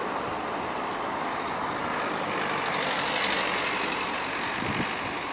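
Jet engines of a twin-engine Boeing 767 running at high power as the airliner speeds away down the runway: a steady rushing noise that swells to a louder hiss about three seconds in, then eases as it recedes.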